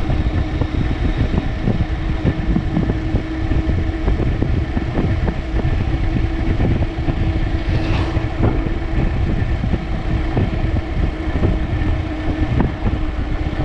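A vehicle's engine running steadily while under way, with a constant hum, a low rumble and frequent small knocks and rattles.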